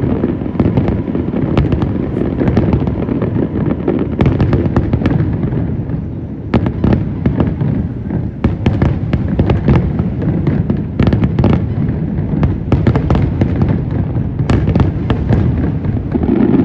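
Aerial fireworks display: many shells bursting in quick succession, deep booms overlapping into a continuous din with sharp cracks throughout.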